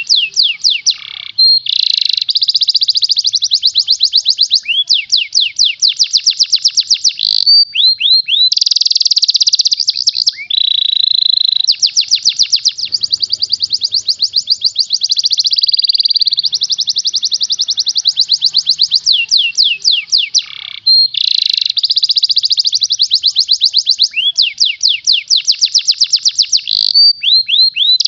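Yellow domestic canary singing a long, nearly unbroken song of fast, tightly packed trills: rows of quick rising notes, the phrase changing every second or two, with a few brief pauses.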